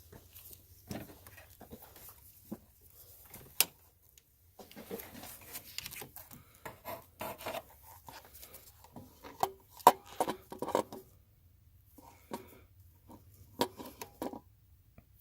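Irregular clicks, knocks and rustling of objects being handled, with a few sharper knocks among them.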